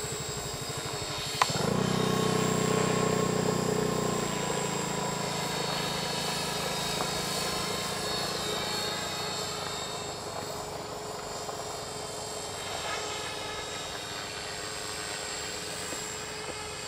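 Radio-controlled model helicopter flying overhead, its rotor and motor running steadily. A single sharp click comes about a second and a half in. Right after it the helicopter sound grows louder for a few seconds, then slowly fades as the helicopter flies farther off.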